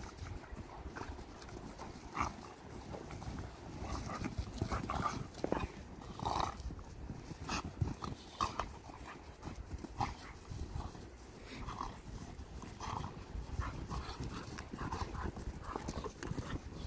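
Two dogs play-wrestling in snow, with many short, scattered dog noises of rough play, over a low rumble.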